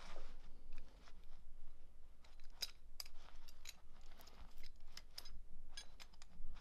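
Light, irregular clicks and clinks of two metal motorcycle shift levers, an old stock one and a new one, being handled and knocked together against the floor.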